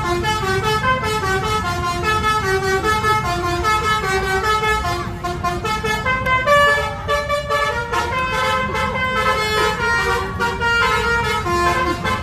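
Bus musical 'telolet' horn of the basuri type playing a running tune of short notes, changing pitch several times a second, over a low rumble.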